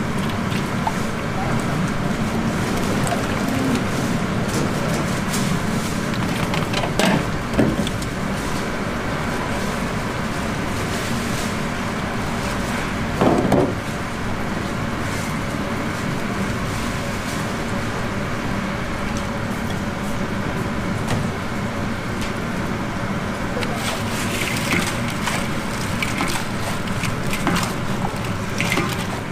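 Wooden paddles knocking and scraping in a large steel bowl as fried chicken is tossed in sticky sauce, with a few sharper knocks and a run of scraping near the end. Under it, a steady hum and murmur of voices.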